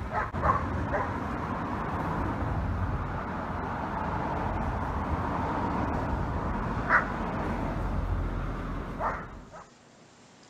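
A dog barking in short sharp barks, three in quick succession at the start and single barks about seven and nine seconds in, over a steady outdoor rumble that cuts off near the end.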